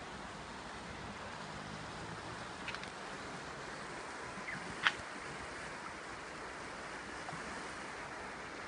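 Steady outdoor rushing noise, with a sharp click a little past halfway and a fainter one about a third of the way in.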